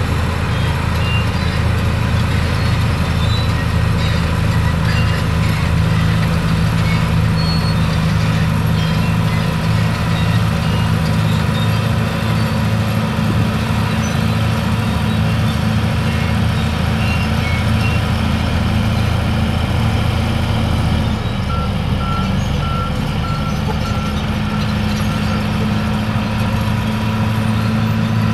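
Komatsu D155 crawler bulldozer's diesel engine running steadily under load as the dozer pushes limestone rubble. Near the end the engine note drops and shifts and a short row of high beeps sounds, then the engine picks up again.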